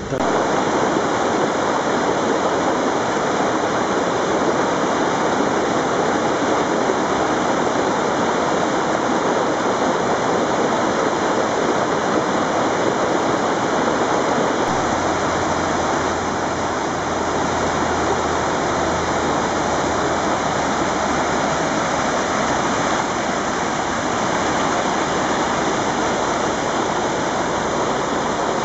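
Mountain torrent rushing and cascading over rocks and small falls, a loud, steady roar of water with no pauses.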